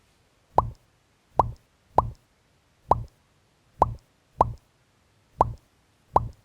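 A short plop sound effect, a quick rising bloop over a soft thud, repeated about eight times at uneven gaps, each one the same, with silence between.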